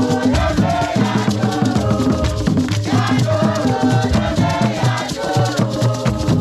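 Ensemble of tall hand drums playing a fast, steady rhythm with a shaker rattling along, while a group sings together and claps.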